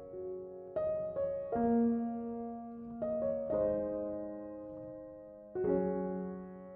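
Background piano music: soft chords and single notes struck every second or two, each fading away.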